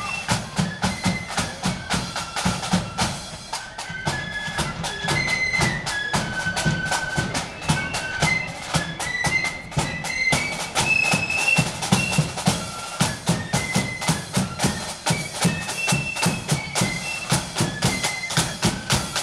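Marching band playing: a high flute tune over steady snare and bass drum beats.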